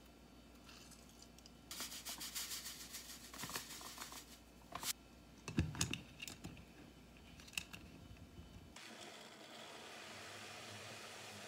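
Plastic blade lid being screwed onto a personal blender cup, heard as rapid scratchy clicking for about three seconds. It is followed by a low thump as the cup is handled, then a few sharp plastic clicks.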